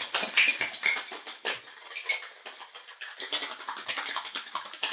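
Cocktail glassware clinking and scraping as a rice-washed Negroni is prepared: a dense run of small clicks and rattles, busier at the start and again toward the end.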